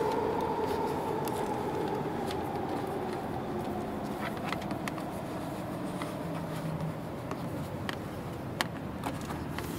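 Scattered light clicks and taps of a plastic trim-removal tool working along the rubber door seal and A-pillar trim to tuck a cable in. They come over a steady background hum that fades over the first few seconds.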